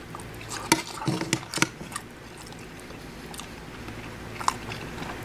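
A man chewing a mouthful of vegan orange chicken and fried rice with his mouth close to the microphone, with several short wet mouth clicks in the first two seconds and another near the end.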